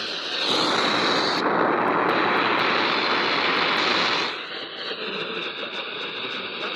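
A loud, steady rushing hiss of static that starts about half a second in and drops off after about four seconds to a fainter hiss.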